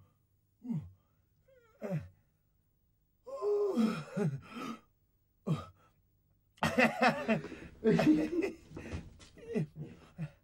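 A man's wordless vocal sounds: a few short gasps and exclamations falling in pitch. From about three seconds in, longer stretches of voiced noises follow.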